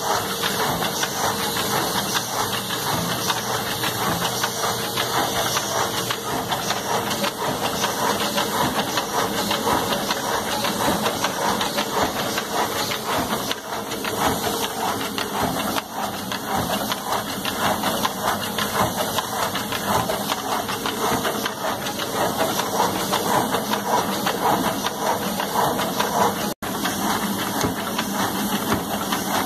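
Automatic CD disc-handling and screen-printing machinery running: a steady hissing machine noise with fast, continuous clattering, cutting out for an instant near the end.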